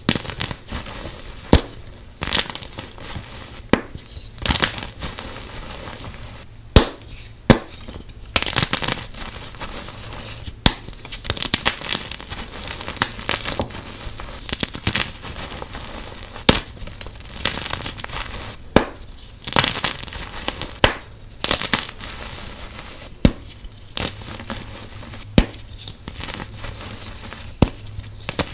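Blocks of dyed gym chalk snapped and crushed by hand: a steady crumbling, powdery crunch broken by sharp, irregular cracks every second or two as pieces break.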